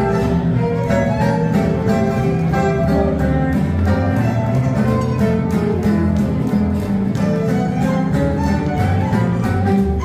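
Small live acoustic band playing: a violin carries the melody over an upright bass line and strummed rhythm guitars.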